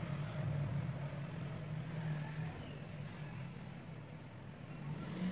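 A steady low mechanical hum from a running motor, wavering slightly in pitch.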